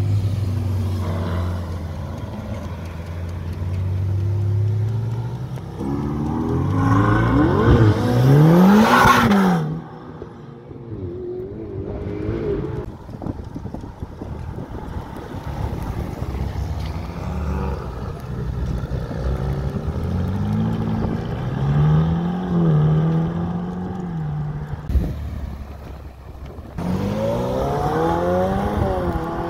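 Ferrari sports car engines accelerating hard from a standstill in a string of short clips, the engine pitch climbing. The loudest run, about eight seconds in, rises steeply and cuts off abruptly, and another rising run comes near the end.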